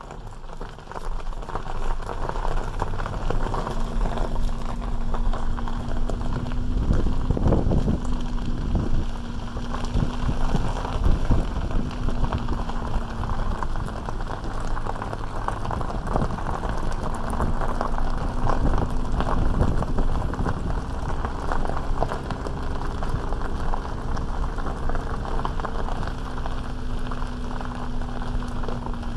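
Vehicle moving off and driving slowly up a rough gravel road: tyres crunching on gravel, with frequent knocks and jolts and a steady engine hum underneath. The sound picks up about a second in as the vehicle gets moving.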